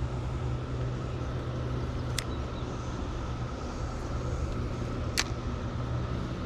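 Steady low engine drone, with a faint even cicada chorus held at one pitch above it. Two sharp clicks come about three seconds apart.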